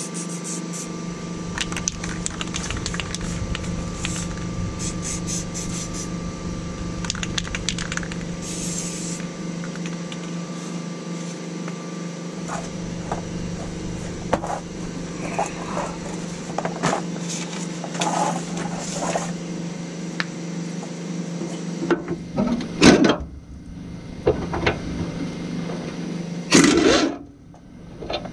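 Scattered clinks and scrapes of tools and bolts at a pickup's rear bumper bracket over a steady hum, then two short loud bursts from an air impact wrench near the end, the second the loudest.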